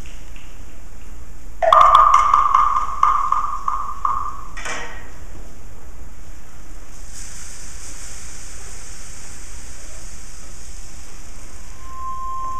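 Sparse percussion-ensemble music: a pitched percussion instrument is struck in a quick cluster of hits about a second and a half in and rings for a couple of seconds. A single sharp stroke follows a few seconds later, then a soft, steady high hiss, with a held high tone coming in near the end.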